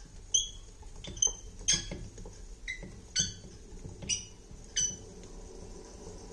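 The wooden handle on the flywheel of a hand-turned burin fixe (fixed-graver) watchmaker's faceplate lathe squeaking as the wheel is cranked: about seven short, high squeaks, unevenly spaced under a second apart.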